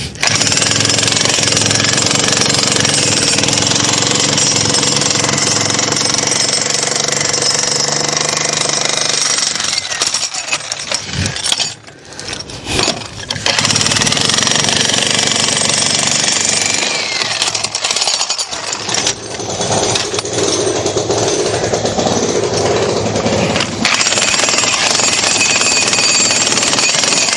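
Jackhammer breaking concrete with a steady, fast hammering. It stops for about two seconds near the middle and then starts again.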